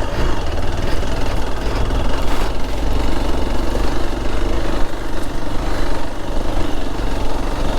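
Hero Xpulse motorcycle's single-cylinder engine running steadily while riding, with wind and road noise.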